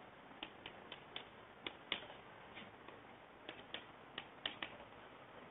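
Chalk writing on a blackboard: a run of light, irregular taps and short scratches, a few each second, as the chalk strikes and drags across the board with each stroke.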